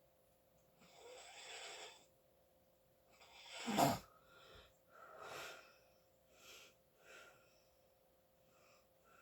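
A sleeping person snoring: a breathy inhale, then a louder snore with a falling pitch about three to four seconds in, followed by several fainter, irregular breaths.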